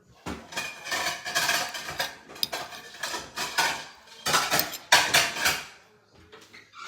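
Cutlery clinking and scraping against dinner plates, with dishes knocking together in a quick, irregular clatter that dies down near the end.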